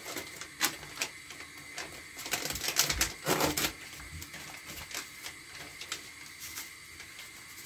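Dried seasoning being shaken from a plastic spice shaker and packet into a bowl: a run of small clicks and rattles with plastic crinkling, busiest a little past two seconds in.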